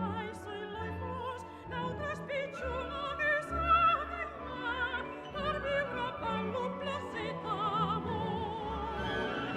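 Background music: orchestral classical music with an operatic voice singing with wide vibrato.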